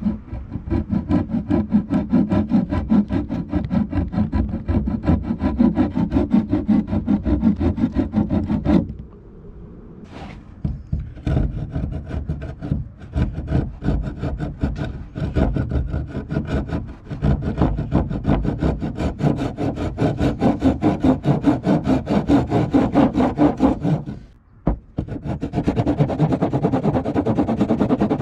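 Hand saw cutting through a cheap 1x3 wooden board in fast, even back-and-forth strokes. It stops for a couple of seconds about a third of the way through, then carries on, with another short break near the end.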